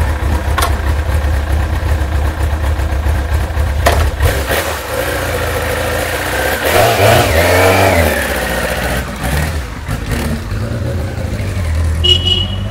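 Kawasaki ZX-9R's inline-four engine running cold, not yet sounding its best: a steady idle, revs rising and falling about seven seconds in as the bike pulls away.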